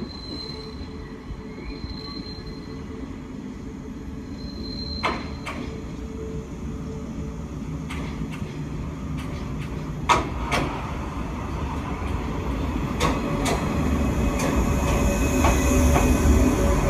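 A JR East 485-series electric train, the Zipang joyful train, approaching slowly and passing close by, its rumble growing steadily louder. There are a few sharp clacks from the wheels over the rail joints, and a high-pitched squeal rises near the end as the cars go past.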